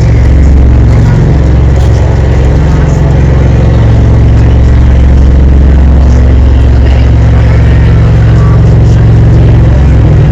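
Tour boat's engine running steadily while under way: a loud, unbroken low drone.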